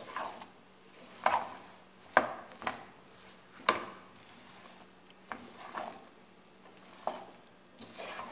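A spoon stirring and folding popcorn through sticky caramel in a metal pan, with irregular knocks and scrapes of the spoon against the pan about once a second.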